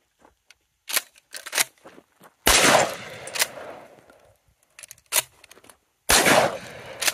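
Two blasts from a Maverick 88 pump-action shotgun firing 00 buckshot, about three and a half seconds apart, each echoing briefly. Short metallic clacks of the pump action being worked come before and between the shots.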